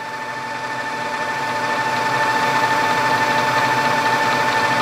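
Bridgeport vertical milling machine running, its variable-speed head in low speed with a steady whine, while the ProtoTrak two-axis servo drives feed the table in X and Y together along a circular-pocket path. The sound swells over the first couple of seconds, then holds steady.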